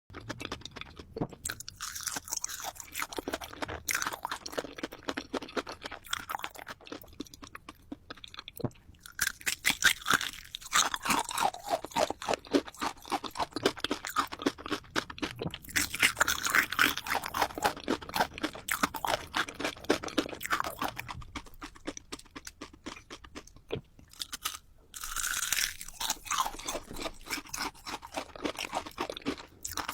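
Close-up crunching and chewing of hard candy, a dense run of rapid crackling crunches that comes in bursts, densest around ten, seventeen and twenty-five seconds in.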